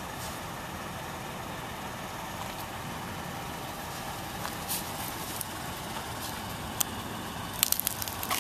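Steady drone of a running engine or machine in the background, with a quick cluster of light clicks near the end.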